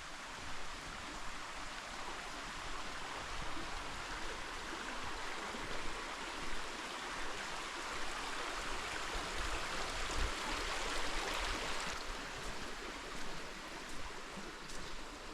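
Creek water running over rocks: a steady rushing, which swells for a few seconds past the middle and eases off toward the end.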